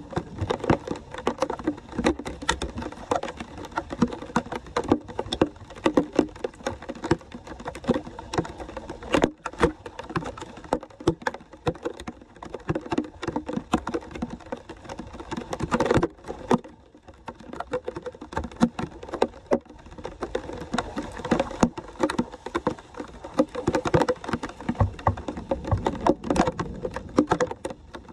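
Floodwater splashing and sloshing in a street gutter as debris is pulled out of a blocked drain grate by hand, with rain pattering on the water: a dense, irregular run of splashes and small knocks.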